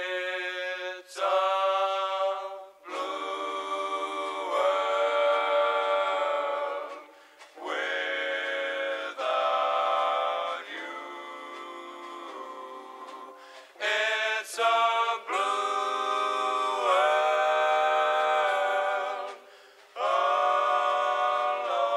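Background music of choir-like singing: long-held notes in phrases of a few seconds with short breaks between them, thin-sounding with no bass.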